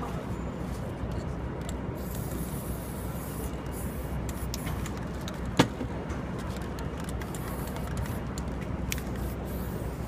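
Steady city street traffic noise, with a brief high hiss about two seconds in and a single sharp click a little past halfway.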